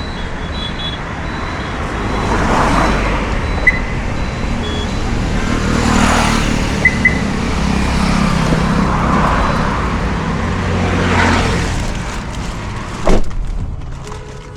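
Road traffic with vehicles passing one after another, each swelling and fading, and a few short high beeps. Near the end a single loud thump, like a car door shutting, after which the traffic sound drops and turns muffled.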